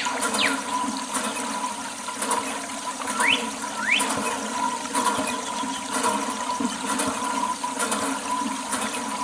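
Water rushing and splashing steadily, as in hosing or washing down, over a steady hum, with a few short sliding whistle-like tones.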